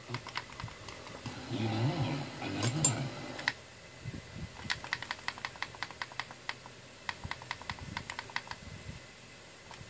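Repeated clicking of the tuning button on a Sony digital synthesizer FM tuner, pressed in quick runs of about four to five clicks a second as the frequency steps down.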